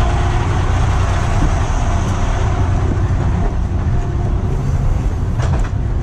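Heavy rotator tow truck's diesel engine running close by, a steady low rumble.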